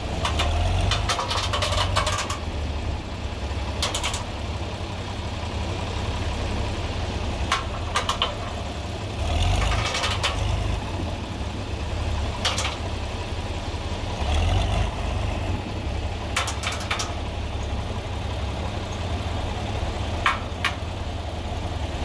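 A John Deere 4020 tractor engine runs steadily and swells in level a few times as the loader tractor pulls a stuck truck whose rear wheel will not turn. Sharp knocks and clanks come now and then.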